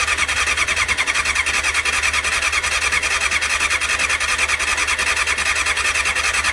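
Electric starter cranking a 1989 Honda CBR600's inline four-cylinder engine, a high whine with an even pulse of about eight compressions a second. The engine turns over on choke without catching.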